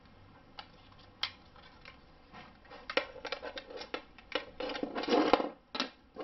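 Plastic parts of a DT830B multimeter clicking and rubbing as they are handled and fitted together. There are a couple of sharp clicks in the first second or so, then a denser run of scraping and clicking from about three seconds in, loudest a little past five seconds.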